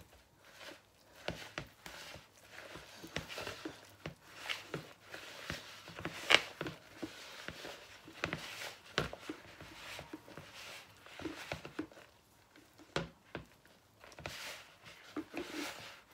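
Hands mixing wholemeal bread dough in a plastic bowl: irregular rustling and scraping, with soft knocks of hands against the bowl, the sharpest about six seconds in.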